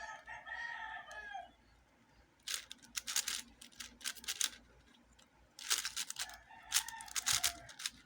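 Shengshou Legend 4x4 speed cube being turned in quick bursts of plastic clicks. A rooster crows twice in the background, once at the start and again about six seconds in.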